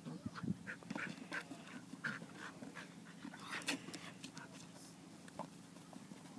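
A dog panting hard in short, irregular breaths, with a few light knocks mixed in; it eases off after about four seconds.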